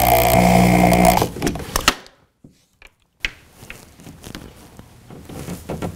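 Cordless drill driving a mounting screw through a thermostat's plastic base plate into the wall, its motor running steadily and then stopping about a second in. A few faint clicks and handling sounds follow.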